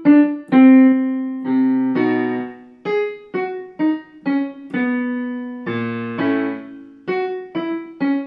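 Digital piano playing short groups of single notes that step downward, with a few chords, a new note every half second or so: the descending pentatonic pattern of a singing exercise.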